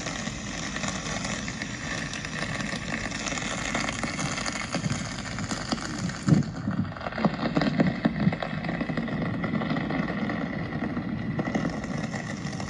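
Steady rain hiss with fine pattering. About halfway through, the high part of the hiss falls away and a few low thuds and rumbles come in for several seconds, before the full hiss returns near the end.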